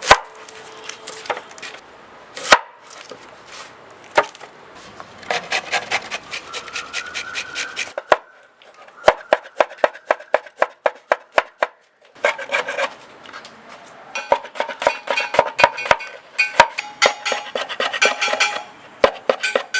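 Knife chopping vegetables (onion, tomato, carrot and cabbage) on a cutting board, in runs of quick strokes of about four a second with short pauses between runs.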